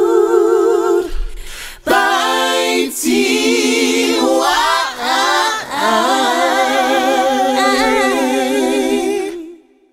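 A cappella outro jingle: voices singing without instruments in long held, wavering notes, with a short break about two seconds in, fading out just before the end.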